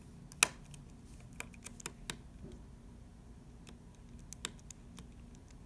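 Small hand tool clicking and tapping against a smartphone's internal parts and motherboard hardware: a dozen or so irregular sharp clicks, the loudest about half a second in.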